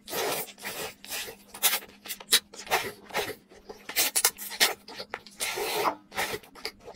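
Wet slurping and smacking as long tteokbokki rice cakes coated in thick spicy sauce are sucked into the mouth and chewed. It comes as a run of short, noisy slurps, one after another.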